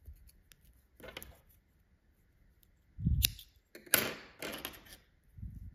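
Scissors snipping through yarn in a few short cuts, with a couple of dull knocks from handling.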